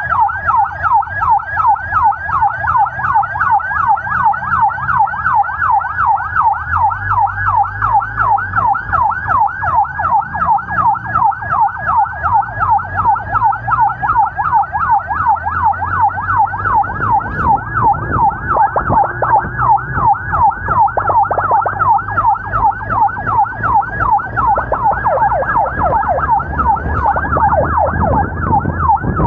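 Emergency vehicle's electronic siren on the yelp setting: fast, repeating rising sweeps, loud and continuous. A vehicle engine and road noise run underneath and grow stronger in the second half.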